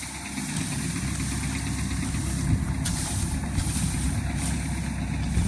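A 65 hp Al-Ghazi tractor's diesel engine running at a steady, even speed.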